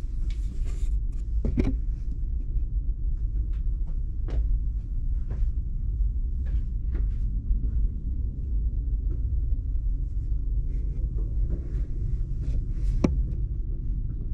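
Steady low rumble of wind buffeting the microphone, with scattered light taps and knocks from footsteps on rock and the camera being handled.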